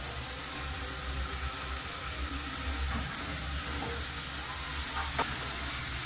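Onion, tomato and chile frying in butter in a pan, sizzling steadily while a wooden spoon stirs them. One sharp click about five seconds in.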